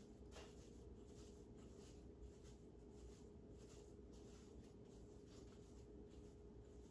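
Faint broom sweeping: soft, scratchy bristle strokes on the floor, repeating about two to three times a second.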